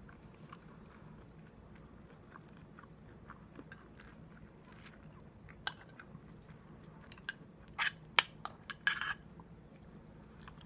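A person chewing and eating a meal of curry, with many small clicks. A few louder clicks and crunches come between about six and nine seconds in.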